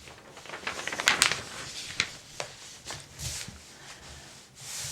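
Pages of a paper catalog being handled and turned: a cluster of crisp paper crackles about a second in, a few single clicks after, and a soft swish of a page near the end.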